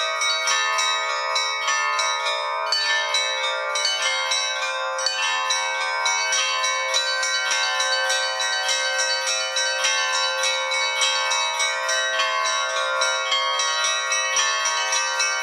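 Russian Orthodox church bells rung by bell-ringers in a quick, continuous peal of several small and medium bells, the strikes overlapping so the tones ring on together, with no deep bass bell sounding.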